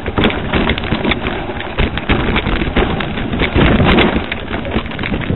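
Mountain bike riding over a rough dirt trail, with frequent irregular knocks and rattles from the bike, and wind buffeting the microphone.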